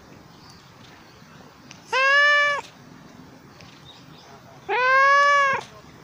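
Domestic cat meowing twice at close range, about two seconds in and again near the end, each a clear, drawn-out meow, the second a little longer.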